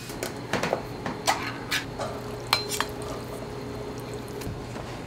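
Kitchen utensils and dishes clinking and knocking: about ten sharp clinks in the first three seconds, one with a brief metallic ring, then a few fainter taps.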